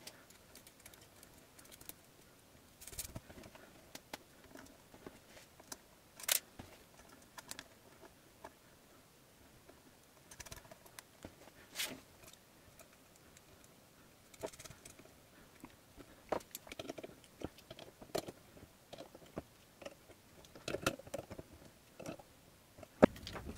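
Sparse light clicks and taps of small metal hardware and hand tools being handled against a sheet-metal motor mounting plate, a few sharper knocks among them and a closer cluster of clicks near the end.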